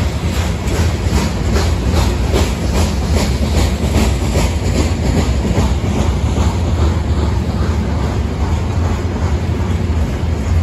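Freight train of hopper cars rolling past at close range: a steady low rumble of wheels on rail with a rhythmic clickety-clack of wheels over the rail joints. The clacks are clearer in the first half.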